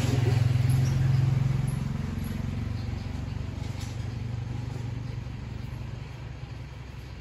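A low, steady engine hum, loudest in the first two seconds and then slowly fading away.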